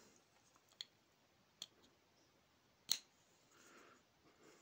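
Three small sharp clicks of a paracord bracelet's black plastic buckle, which has a built-in flashlight, being handled. The last click, about three seconds in, is the loudest.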